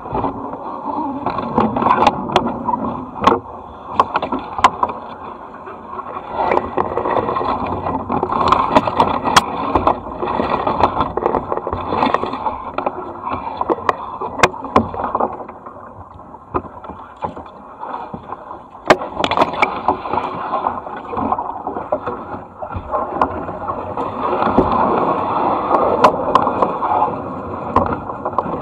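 Kayak paddling: double-bladed paddle strokes splashing and churning the water, swelling and easing every few seconds, with occasional sharp clicks and knocks.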